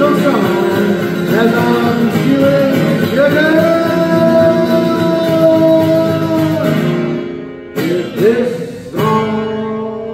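A man singing with full voice, holding long notes, over his own strummed acoustic guitar. Near the end the voice drops out and a few hard strums on the acoustic guitar ring on.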